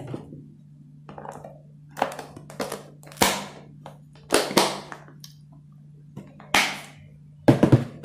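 Plastic food containers packed with shredded purple cabbage handled and knocked on the counter: a string of short knocks and rustles of shifting cabbage, the sharpest near the end.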